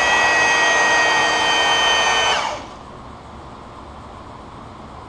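Hydraulic pump driving the axle-bending jacks under a truck, running with a steady high whine over a hiss that sags slightly in pitch and then cuts off about two and a half seconds in, leaving a low steady shop hum.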